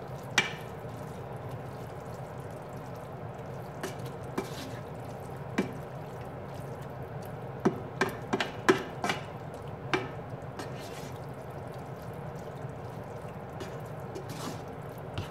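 A plastic slotted spoon stirring a wet ground-beef and vegetable stew in a pan, with scattered short clicks and taps of the spoon against the pan, clustered in the middle, over a steady background hum.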